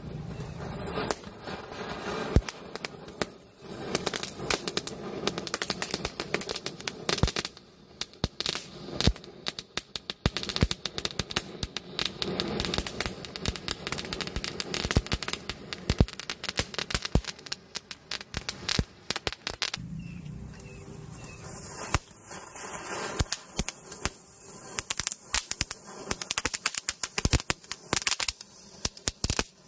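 Firework fountains hissing as they spray sparks, with dense sharp crackling pops throughout and matchsticks flaring along the chain. The crackle thins briefly about a quarter of the way in and again about two-thirds in.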